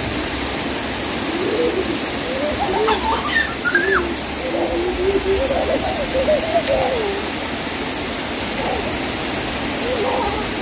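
Heavy rain pouring down steadily. Some voices in the background come and go from about a second and a half in to about seven seconds.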